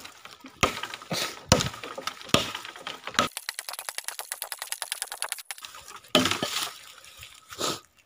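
A dao (heavy chopping knife) hacking through a fallen tree branch: a series of sharp chopping strikes, with a pause of a couple of seconds in the middle before a few more blows near the end.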